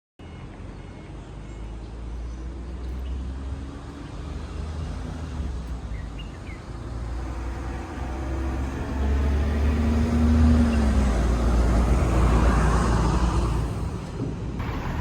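Road-vehicle noise over a steady low rumble, swelling to its loudest about ten to thirteen seconds in, then easing.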